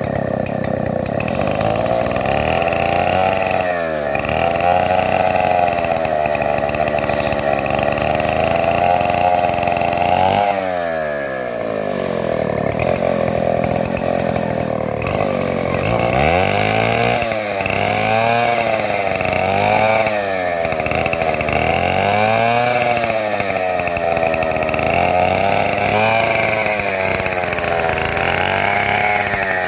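Chainsaw running at high revs while milling timber freehand. The engine speed sags under the cut's load and picks back up, with a deep dip about ten seconds in and then repeated dips every couple of seconds in the second half.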